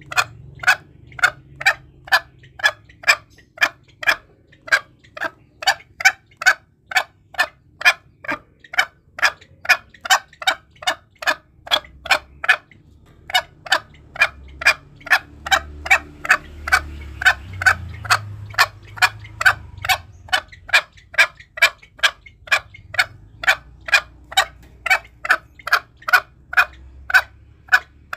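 Green junglefowl calling in short, clucking notes repeated evenly about twice a second, with one short pause about twelve seconds in. This is the bird's own call, used as a hunting lure to provoke wild junglefowl.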